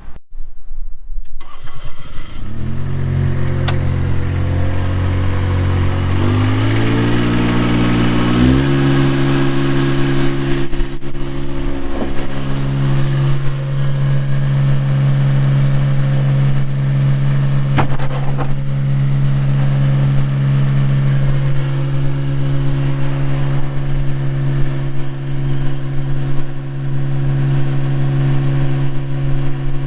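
Bobcat 463 skid steer's Kubota diesel engine starting about two seconds in and idling. It is then throttled up in a few steps and runs steadily at high speed from about eight seconds on.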